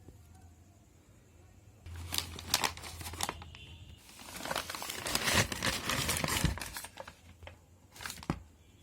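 A book parcel's packaging being opened by hand, crinkled and torn. The crinkling starts about two seconds in, grows into a longer, denser stretch of tearing and crumpling in the middle, and ends with a few separate rustles near the end.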